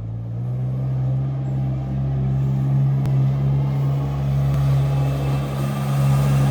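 A vehicle engine running steadily, its low hum getting gradually louder toward the end.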